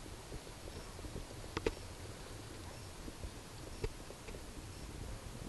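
Faint outdoor ambience: a low, even rumble, a few faint high peeps, and two small clicks, about one and a half and four seconds in.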